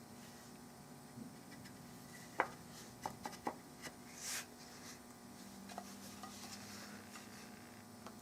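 A few light knocks and clicks as a steel barreled action is set down into a walnut rifle stock, the first the loudest, followed by a short scrape about four seconds in. A faint steady hum lies underneath.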